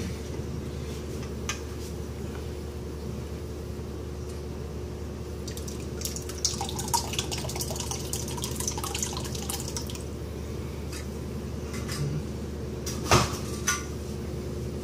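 Makgeolli, a milky rice liquor thick with rice, poured from a glass jar into a cheesecloth-lined strainer over a stainless steel bowl, splashing and dripping for a few seconds in the middle. A single sharp knock near the end, over a steady low hum.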